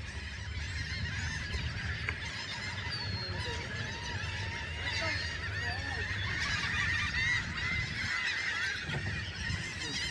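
A large flock of gulls calling at once, a dense chorus of many overlapping squawks, over a steady low rumble.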